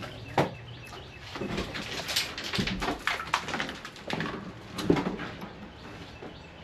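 Irregular clicks and knocks, a dozen or so short sharp sounds with no steady rhythm, the loudest about five seconds in.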